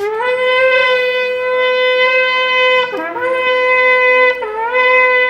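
Shofar blown in long, loud, steady blasts, each note sliding up into pitch as it starts; the sound breaks off briefly about three seconds in and dips and re-attacks about four and a half seconds in.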